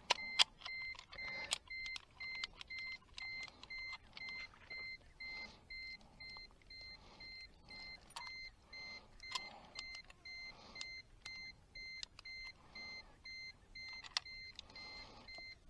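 Electronic beeping: short, high beeps repeating evenly about twice a second, with a few sharp clicks and knocks of handling among them.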